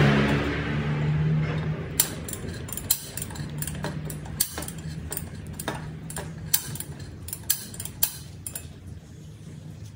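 Light metallic clicks and clinks of tools and aluminium parts being handled in a workshop, irregular, about one or two a second, over a low steady hum. A rushing sound dies away in the first two seconds.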